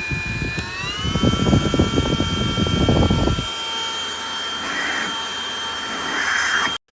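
Small cordless handheld vacuum cleaner running with a steady high motor whine that rises in pitch about a second in. A rough low rumble goes with it for the first three and a half seconds, and the sound cuts off suddenly near the end.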